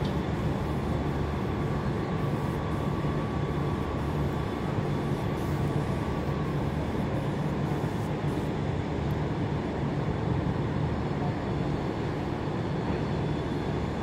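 Steady low rumble of a ship's engine and machinery under way at slow speed, with a faint thin whine that stops about halfway through.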